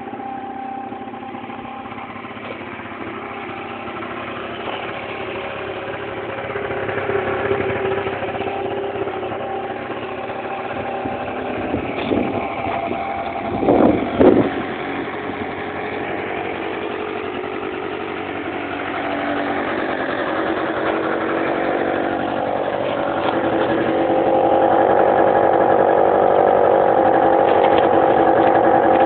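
Scooter engine running steadily, revved in two quick blips about halfway through, then running louder and steadier for the last few seconds.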